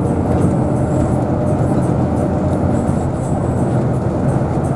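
Steady vehicle running noise, a continuous rumble of engine and road noise from a vehicle travelling along the toll road.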